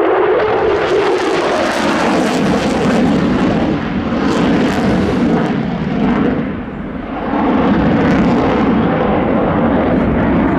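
F-16 fighter jet engine noise, a loud steady rush that dips briefly about six and a half seconds in, then swells again.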